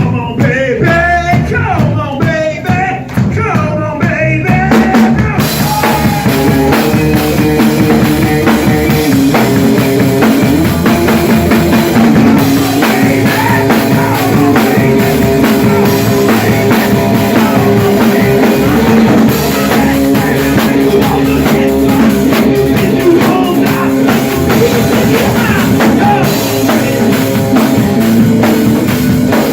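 Live rock band playing an instrumental stretch with drum kit and guitar. The full band comes in thicker and louder about five seconds in, with sustained held notes over steady drumming.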